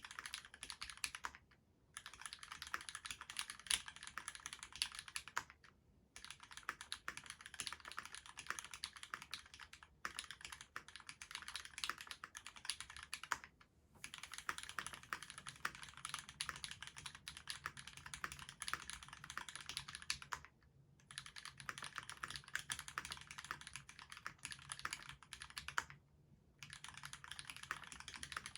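Fast continuous typing on a Duck Octagon v3 mechanical keyboard with lubed Cherry retooled black linear switches, a stainless steel plate and GMK doubleshot ABS keycaps, in runs of rapid keystrokes broken by brief pauses every few seconds.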